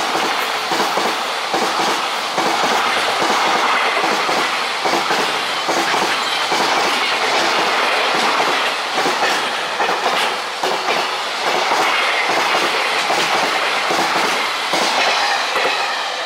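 Freight train's container flat wagons passing at speed, the wheels clattering over the rail joints in a dense run of clicks. The noise begins to fade near the end as the last wagons go by.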